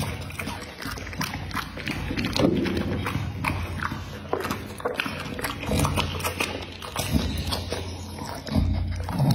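Pit bull licking its lips and chewing: a steady run of wet smacking and clicking mouth sounds.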